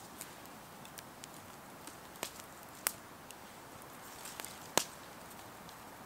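Wood campfire crackling: a faint steady hiss broken by scattered sharp pops, the loudest about three quarters of the way through.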